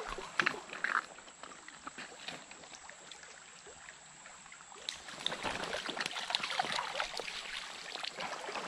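Water splashing at the stream surface as a hooked small brown trout thrashes close in while being brought to the net. A dense run of small splashes starts about five seconds in, after a quieter stretch with a few faint clicks.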